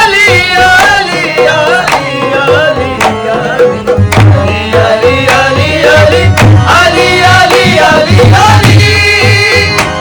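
Qawwali music: a voice singing a wavering, ornamented melody over tabla-style hand-drum strokes.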